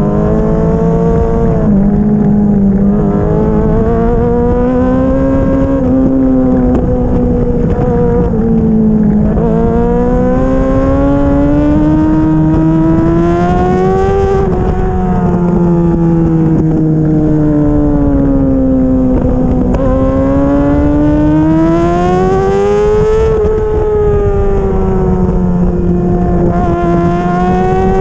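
Motorcycle engine and exhaust heard on board while riding. The revs climb steadily under throttle, then fall back as the rider backs off into the next bend, several times over.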